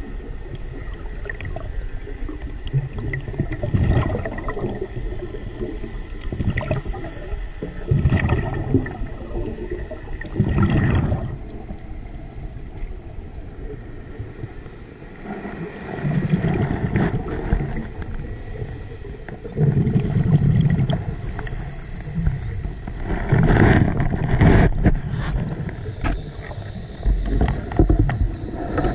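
Scuba diver breathing through a regulator underwater: exhaled bubbles rumble and gurgle in repeated bursts every few seconds, with a hiss between some of them as air is drawn in.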